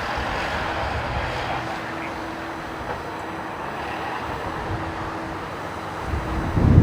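Jet airliner noise: a steady rushing sound with a faint hum, mixed with wind buffeting the microphone as a low, uneven rumble. A stronger low surge swells near the end.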